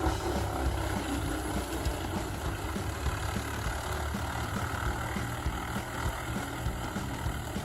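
Heavy diesel engine of a wood chipper running steadily, a low hum with a fast, even pulse.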